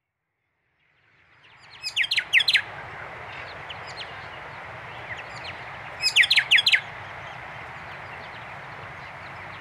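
Honeyeater calling: two bursts of quick, sharp downward chirps, about two seconds in and again about six seconds in. They sit over a steady background of bird chatter that fades in from silence during the first second.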